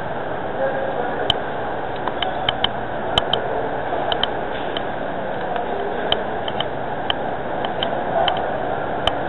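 Airsoft guns firing scattered single shots: sharp, irregular clicks, about twenty over several seconds, over a steady background hiss.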